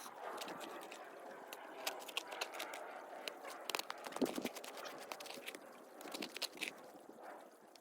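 Digging with a shovel in rocky soil: scraping with frequent sharp clinks and knocks, and a heavier strike about four seconds in.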